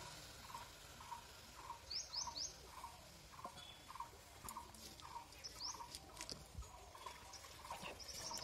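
Faint bird calls: one bird repeats a short note about two times a second, and a few quick high rising chirps come from another bird, twice.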